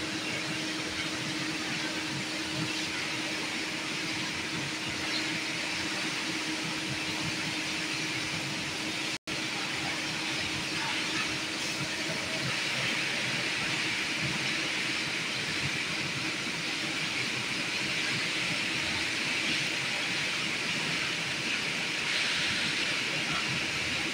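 Steady background hiss with a faint low hum, broken by a brief dropout about nine seconds in; the hiss grows brighter in the second half.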